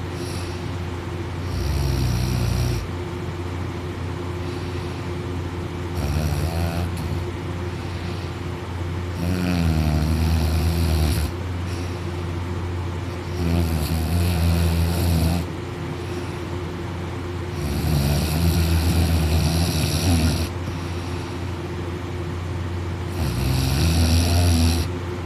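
A person snoring while fast asleep: six loud snores, one about every four seconds, each lasting one to three seconds. A steady low hum runs underneath.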